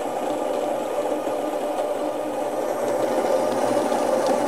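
Baratza Encore ESP burr coffee grinder running steadily, its DC motor and 40 mm steel burrs grinding beans at a coarse drip-coffee setting into the grounds bin: a steady, even motor hum.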